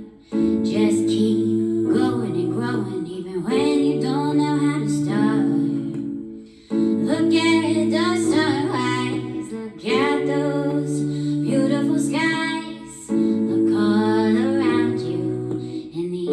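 Music: a woman singing over held chords.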